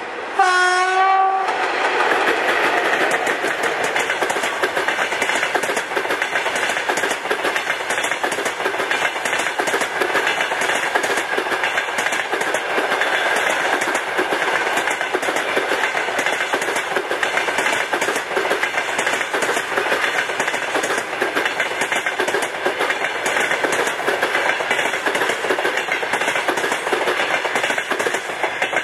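An EP1M electric locomotive gives a short horn blast of about a second as it passes. Then the passenger cars roll by loudly and steadily, their wheels clicking over the rail joints. The sound drops away at the very end as the last car passes.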